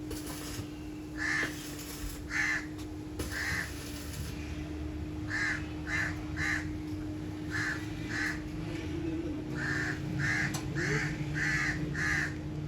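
Crows cawing over and over, short separate calls about once a second that come faster near the end, over a steady low hum.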